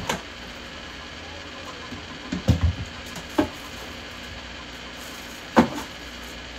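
A refrigerator being opened and things handled inside it: several separate knocks and clunks, loudest about two and a half seconds in and again near the end, over a faint steady hum.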